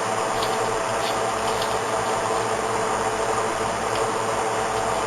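Steady background hiss and low hum, with a few faint light clicks of handcuff metal being handled.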